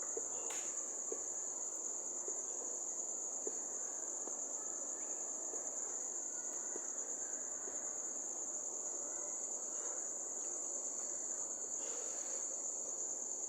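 Steady high-pitched insect chorus that holds unchanged throughout, over a faint background hiss.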